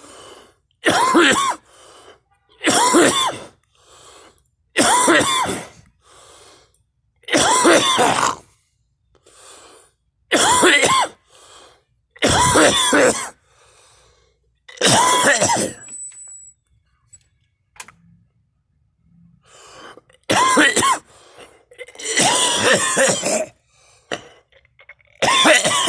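A person coughing hard, about ten loud coughs spaced roughly two seconds apart, with quieter breaths and throat sounds between them and a pause of a few seconds in the middle.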